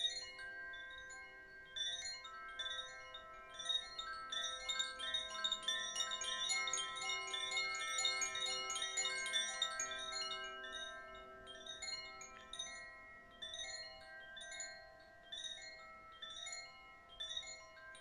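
Koshi Terra chime, a wind chime with tuned metal rods inside a bamboo body, tinkling continuously as the rods strike and ring over one another. The strikes are densest in the middle and thin out toward the end, with the tones lingering between them.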